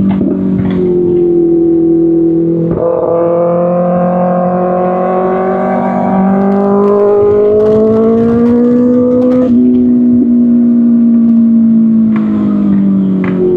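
2025 Kawasaki Ninja ZX-6R's 636 cc inline-four running through an Arrow Pro Race exhaust, heard on board while riding. The engine note drifts slowly in pitch, with sudden steps about three seconds in and again about nine and a half seconds in, as gears are changed.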